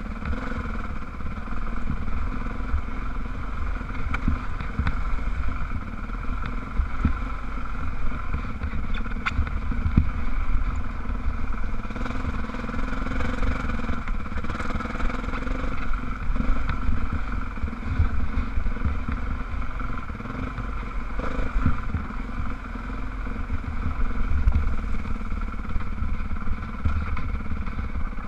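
Dirt bike engine running at steady revs while the bike rides a rough trail, heard from a helmet-mounted camera. Under it are heavy wind buffeting on the microphone and scattered clatter from bumps.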